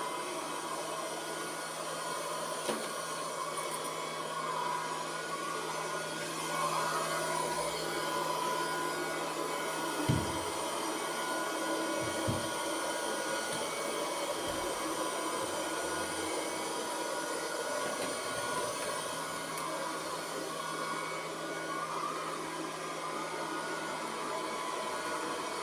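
Robot vacuum-mop running, a steady whir of its suction motor and brushes with a constant hum, while it cleans and mops the floor. Two light knocks come about ten and twelve seconds in.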